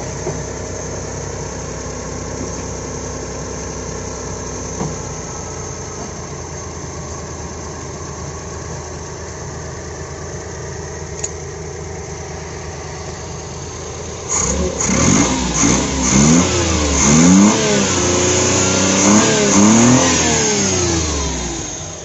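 Suzuki three-cylinder petrol engine idling steadily, then revved up and down repeatedly over the last several seconds before dropping back. It is running again with its intake valve clearance restored; the lost clearance had cost compression and stopped it from starting.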